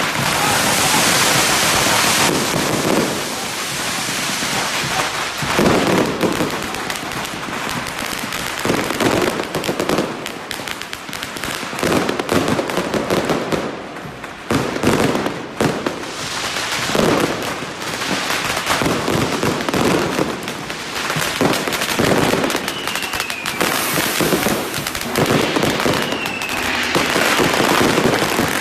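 Firecrackers and aerial fireworks going off in a dense, continuous crackle, with louder bursts every second or two. Two short falling whistles come after the middle.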